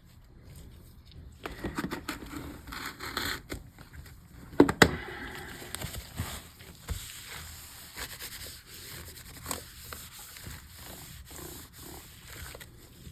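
Rubbing and scraping at sticker residue on a MacBook's surface, in irregular strokes, with two sharp clicks about four and a half seconds in.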